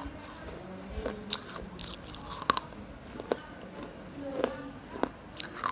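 Crunchy biting and chewing close to the microphone, with about six sharp crunches at irregular intervals, roughly one a second.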